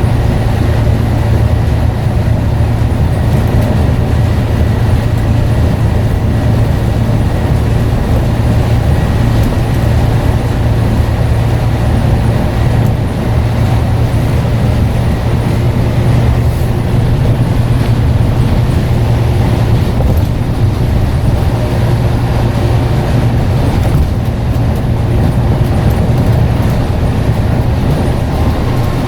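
Scania N94UD double-decker bus engine running steadily with no gear changes or revving. A faint high whistle sits over it and fades out about halfway through.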